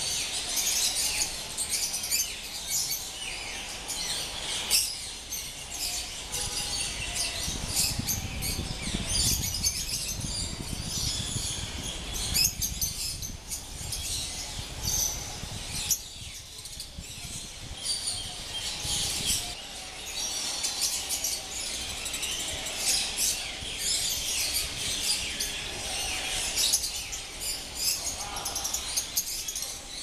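A large mixed flock of aviary cage birds, canaries, Java sparrows and budgerigars among them, chirping and twittering all at once in a dense, unbroken chorus. A low rumble comes and goes underneath.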